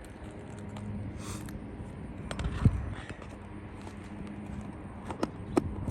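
Scattered sharp knocks and taps from hands-on repair work, the loudest about two and a half seconds in and two more close together near the end, over a low steady hum.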